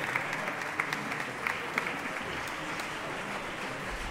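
Audience applauding steadily, a dense mass of clapping with single claps standing out.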